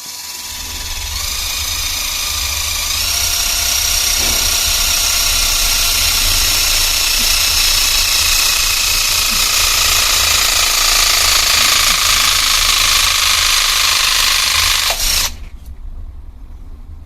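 Cactus battery-powered hydraulic crimping tool running as it presses a 200 mm² lug onto heavy CVT cable: a steady motor-and-pump whine whose tones step up twice in the first few seconds. About 15 seconds in it ends with a sharp pop as the crimp completes, and the motor stops suddenly.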